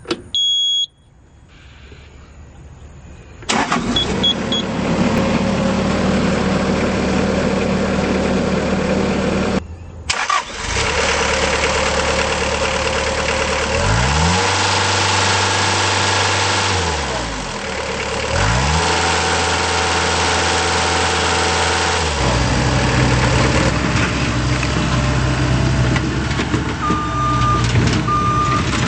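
Bobcat T190 compact track loader's Kubota turbo diesel: a short warning beep, then the engine starts about three and a half seconds in and runs. After a brief break near ten seconds it runs on, with the engine speed dropping and rising around the middle, and a repeating beep sounds near the end.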